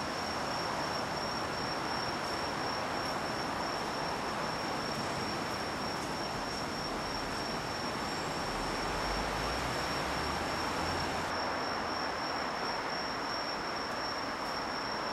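Steady station-platform ambience: an even hiss with a thin, constant high-pitched whine over it, and a faint low rumble for a few seconds past the middle.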